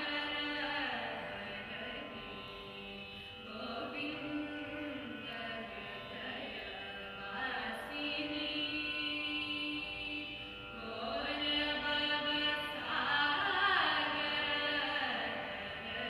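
A woman singing Carnatic vocal music, holding long notes that slide and waver in pitch.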